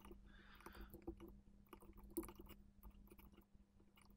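Near silence: faint, scattered clicks from a computer mouse and keyboard over a low steady hum, the loudest click about two seconds in.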